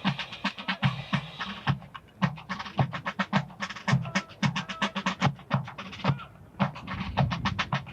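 Marching drums playing a cadence: rapid sharp snare strokes, several a second, over low bass-drum beats, with a short gap in the strokes about six seconds in.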